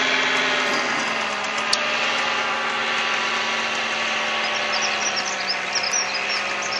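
Paramotor engine and propeller running steadily in flight overhead. The engine's pitch drops a little about a second in, then sinks slowly.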